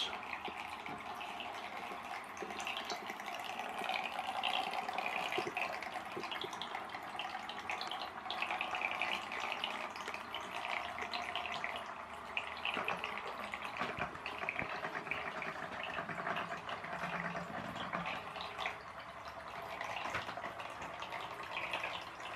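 Small electric motor from a vibrating toothbrush driving a toy boat's plastic propeller, running with a steady buzz while the propeller churns and splashes the bath water.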